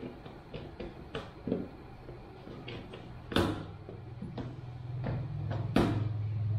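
Scattered light clicks and taps of a brush and small containers being handled on the shampoo basin ledge, with two sharper, louder knocks about halfway and near the end. A low steady hum comes in partway through.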